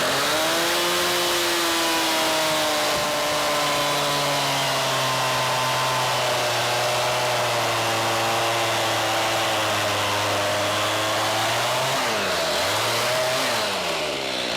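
Two-stroke chainsaw engine running steadily, its pitch dipping briefly at the start and swinging down and back up near the end as the throttle changes.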